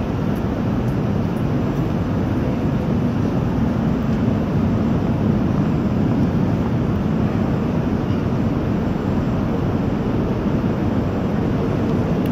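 Steady low rumble and rush of a metro train running in an underground station, loud and unbroken.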